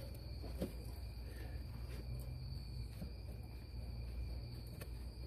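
Steady low background hum with a faint, steady high-pitched tone, and a few faint light clicks as a brake line flare nut is threaded by hand into an ABS module.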